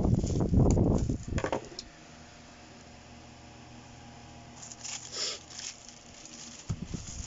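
Plastic courier pouch crinkling and rustling as it is handled and pulled open by hand. The rustling is loud at first, then there is a quiet stretch with a faint steady hum and a brief rustle about five seconds in, and loud handling noise comes back near the end.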